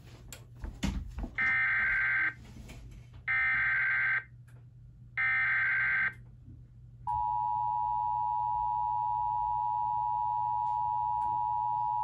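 A TFT EAS 911 encoder sending an Emergency Alert System SAME header for a severe thunderstorm warning: a few front-panel button clicks, then three bursts of warbling data tones about a second long each. About seven seconds in, the steady two-tone EAS attention signal starts and holds for about five seconds.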